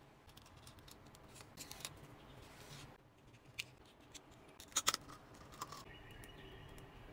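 Thin clear plastic film crinkling and crackling as fingers handle and twist it, with a few sharp crackles about five seconds in.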